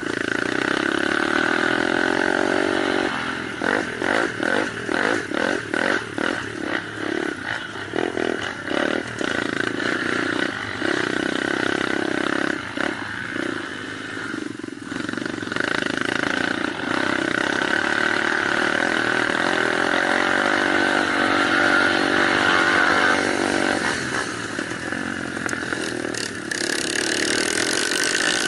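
Small off-road motorcycle engines running and revving. For several seconds the engine note rises and drops in quick pulses, about two a second.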